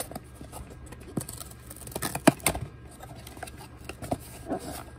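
A small cardboard box being opened by hand: fingernails scratching and tapping at the card, and the flaps rustling as the lid is folded open, with one sharp snap a little over two seconds in.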